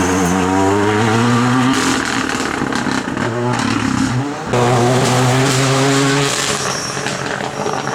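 Renault Clio R3T rally car's turbocharged four-cylinder engine running flat out at high revs, with brief breaks in power about two seconds in and again around four seconds, then pulling hard again before fading near the end.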